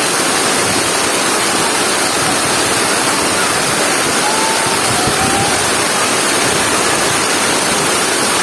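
Steady, loud rush of a waterfall: falling water crashing without a break.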